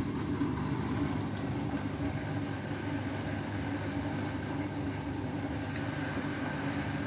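Beko WTK104121W washing machine running steadily, its motor humming as the drum turns the balanced, sudsy load at low speed, with no ramp up into a spin.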